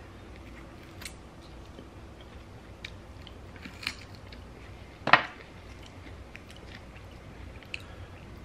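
Close-miked sounds of a person eating a chicken wing off the bone: soft chewing and biting with scattered small clicks, and one sharper, louder click about five seconds in.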